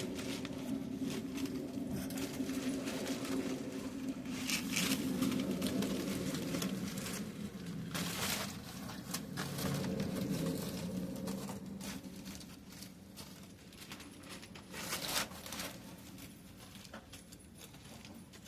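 Aluminium foil crinkling and scraping as ribs are wrapped and sealed in it, in short bursts, over a low steady hum that fades away partway through.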